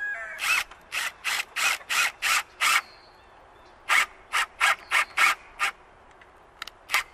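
Cordless drill driving a 2.5-inch self-tapping screw through a wooden board into the kennel's steel bar, in short bursts about three a second: two runs with a pause between, and a couple more near the end.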